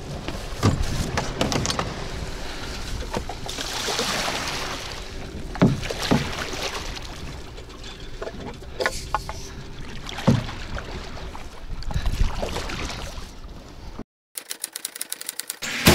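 Knocks and bumps of handling in a small boat on the water over a steady noisy background, a handful of sharp hits scattered through. Near the end the sound cuts out briefly and a quick run of clicks follows.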